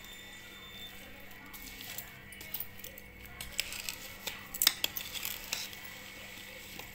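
A spoon scraping and clinking against a steel vessel while stirring oily, masala-coated mango pieces, with a few sharp clinks a little past the middle.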